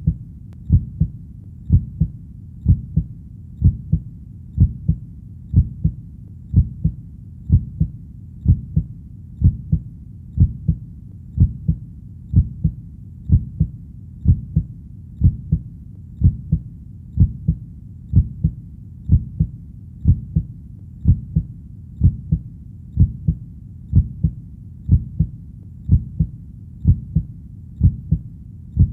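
Human heartbeat, each beat a double thud (lub-dub), keeping a steady rhythm of about one beat a second over a low steady rumble.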